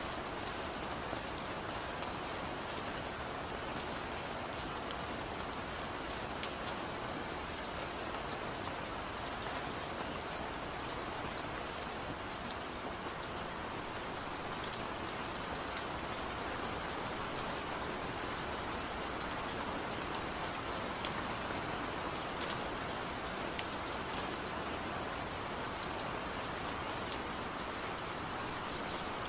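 Steady rainfall, with scattered individual drops ticking sharply on a surface.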